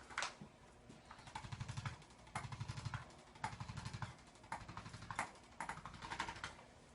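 Handheld chiropractic adjusting instrument firing in about five short bursts of rapid taps, with a few sharper single clicks between them, as it works on the spine to realign the vertebrae and loosen the joints.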